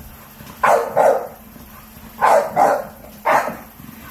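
American bully dog barking: five short barks in quick pairs, two, then two, then a single bark near the end.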